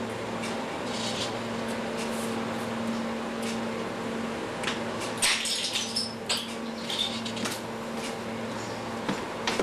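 A steady low machine hum, with a cluster of sharp clicks and a few short high pings about five to seven seconds in.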